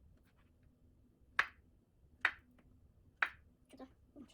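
Knife slicing a banana on a cutting board: three sharp knocks of the blade on the board about a second apart, with a few lighter taps near the end.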